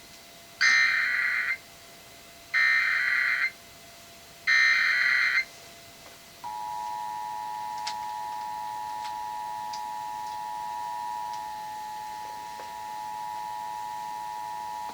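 Emergency Alert System header broadcast over FM radio: three one-second bursts of warbling digital data tones, about a second apart, then the EAS two-tone attention signal starting about six and a half seconds in, a steady two-note tone that holds on. Here it opens a national test of the system.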